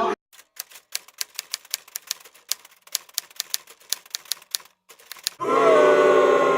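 Rapid typewriter keystrokes, several clacks a second for about four and a half seconds over dead silence, like an edited-in typing sound effect. After a short silence a steady held musical note with a slight downward drift comes in near the end.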